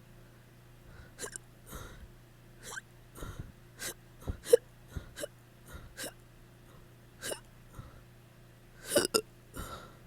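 A person hiccupping over and over, short sharp hiccups at uneven intervals, sometimes two or three within a second, with the loudest about halfway and a longer breathy gasp near the end. The hiccups come from drinking too much alcohol.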